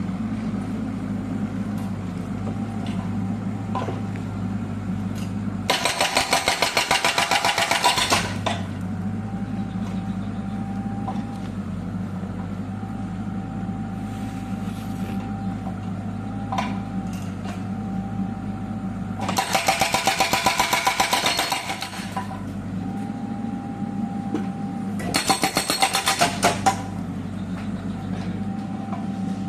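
Kubota U50 excavator's diesel engine running steadily while the newly fitted hydraulic breaker hammers in three bursts of rapid blows, each about two seconds long: about six seconds in, about twenty seconds in, and near the end.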